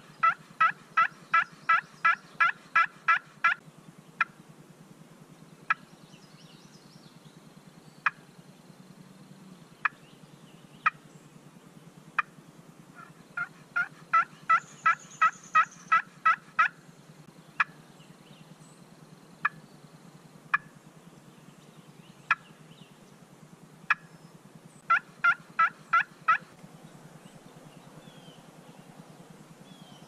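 Hen-turkey yelping on a turkey call, worked by a hunter to draw in a gobbler: three runs of evenly spaced yelps at about four notes a second, at the start, about 13 seconds in and about 25 seconds in, with single clucks between the runs.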